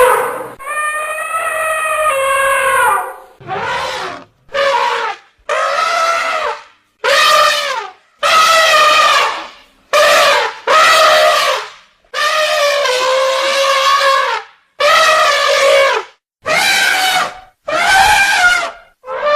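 Elephant trumpeting: about a dozen separate brassy calls in quick succession, some short blasts and some drawn out over two seconds or more, with brief gaps between them.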